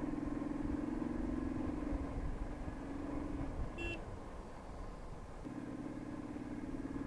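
Royal Enfield Thunderbird X single-cylinder engine running steadily under way. Its note fades for about two seconds past the middle, then picks up again. A brief high tone sounds about four seconds in.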